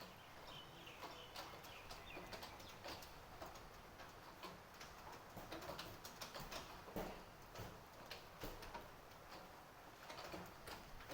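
Rain dripping and pattering on surfaces, with irregular sharp drops over a faint steady hiss; the drops come thicker about halfway through.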